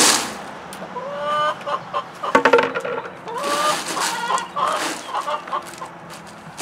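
Ice cubes poured out of a plastic tub rattle into a soft-sided insulated cooler at the start. Chickens then cluck repeatedly, with a short call about once a second.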